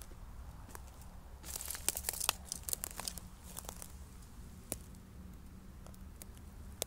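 Dry pine twigs and needles crackling and snapping as they are disturbed, with a dense run of snaps about one and a half to two and a half seconds in and a single sharp snap near five seconds.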